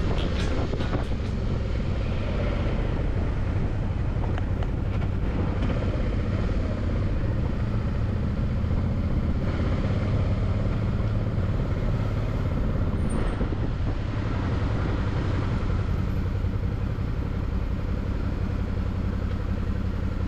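Suzuki V-Strom 650's V-twin engine running steadily at low revs while the motorcycle rolls slowly.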